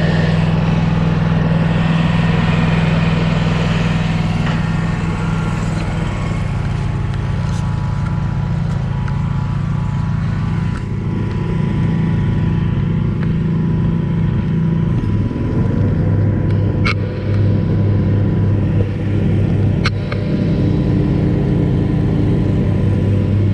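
SCAG V-Ride 2 stand-on commercial mower running steadily while mowing, its engine drone shifting in pitch about fifteen seconds in. Two brief sharp ticks come near the end.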